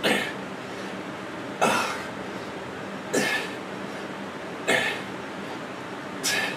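A man's sharp, breathy exhalations of effort, one for each dumbbell rep, five in all, about one every one and a half seconds.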